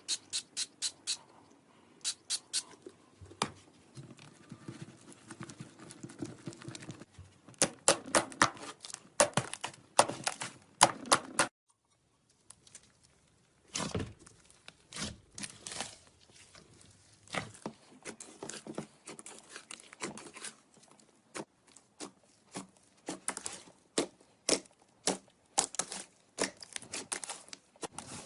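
Slime being squished and worked by hand, giving clusters of sharp sticky clicks and pops, with a brief silence about halfway through.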